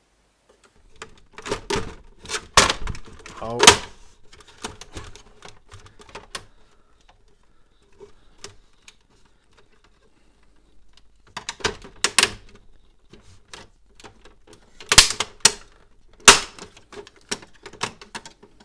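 Sharp clicks, knocks and rattles of the plastic housing of an HP Photosmart C3180 printer being pried and handled with a screwdriver, in three bursts with quieter scraping between.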